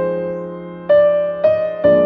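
Background music: slow, gentle electric piano playing single notes and chords that ring and fade, a new one about every half second.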